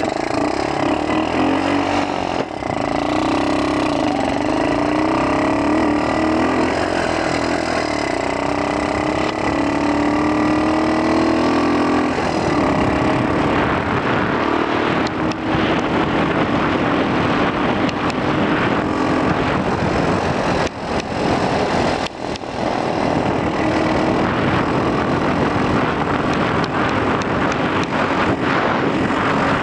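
X18 super pocket bike's small two-stroke engine running under way, its pitch climbing steadily over the first dozen seconds as the bike speeds up, then holding fairly even, with brief drops in the engine note near the middle. Wind buffets the helmet-mounted microphone throughout.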